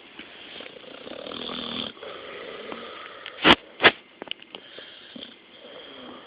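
A sleeping dog snoring: a noisy breath builds for about a second, then two short, loud snorting breaths come about half a second apart a little past the middle, followed by a few faint clicks.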